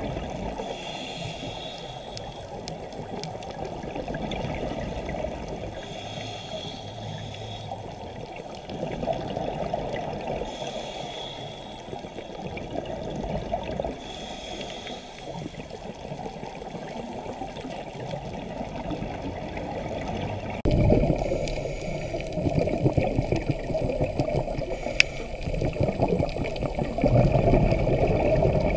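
Muffled underwater sound of scuba breathing through a regulator: a short hiss of inhalation about every four to five seconds and the gurgle of exhaled bubbles. The bubbling grows louder and rougher about two-thirds of the way in.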